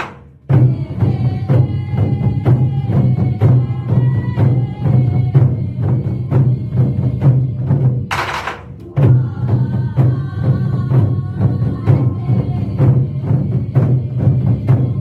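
Korean drum ensemble playing a fast, driving beat on large buk drums over melodic accompaniment. A loud crash-like burst comes about eight seconds in, with a brief drop before the drumming resumes.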